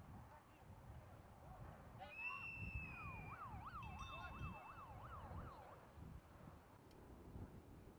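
Faint siren of an emergency vehicle. About two seconds in it sounds one held high tone, then a fast up-and-down yelp wail of about two and a half swings a second that stops near the six-second mark.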